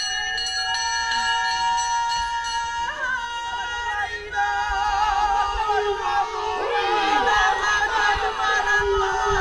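Women's voices in a high, wavering call with strong vibrato, a Māori karanga, entering about three seconds in over steady held tones. Further voices join and overlap from about the middle.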